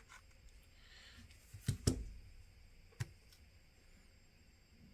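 A few faint clicks and taps of a plastic phone mid frame and the tool working it apart, the clearest three close together in the middle.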